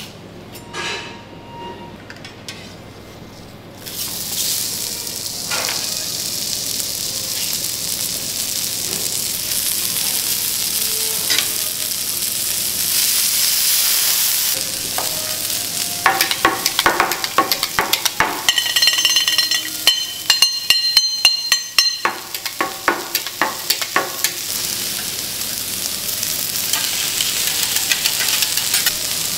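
Food sizzling on a flat steel teppanyaki griddle, the hiss starting about four seconds in once ingredients hit the hot plate. About halfway through comes a run of quick, ringing metal clinks and taps as the steel spatula and tongs strike the griddle and each other.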